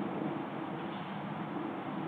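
Steady, even background noise from an outdoor wildlife webcam's microphone, with no distinct calls, footsteps or other events.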